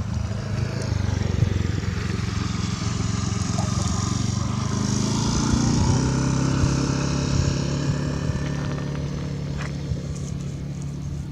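An engine running steadily, a little louder around the middle.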